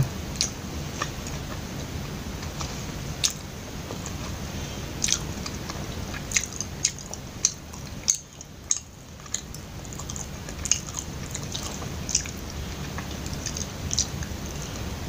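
Close-miked chewing of soft, sticky glutinous-rice kuih, with wet mouth clicks and lip smacks scattered irregularly throughout. There is a short lull about eight seconds in.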